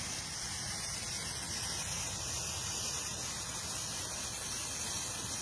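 Steady hiss with no distinct events.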